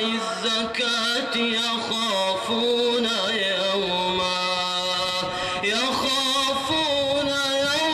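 A man chanting the Quran in melodic tajweed style, drawing the word 'az-zakah' out into long held notes with wavering ornaments.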